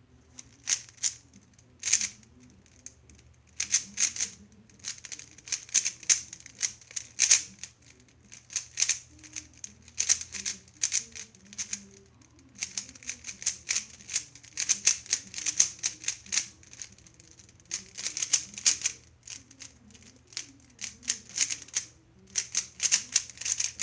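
A 3x3 speed cube being turned fast in a timed solve: quick runs of plastic clicking and clacking as the layers turn, broken by short pauses.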